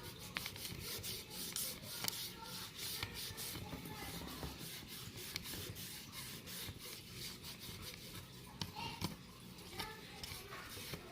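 Kitchen paper towel rubbed hard back and forth over the plastic of a vintage Kenner X-Wing toy in quick, irregular strokes, scrubbing tape residue off with lighter fluid.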